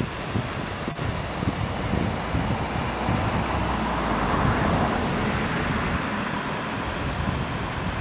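Wind buffeting the microphone in gusts, over a steady rushing noise that swells and fades about halfway through.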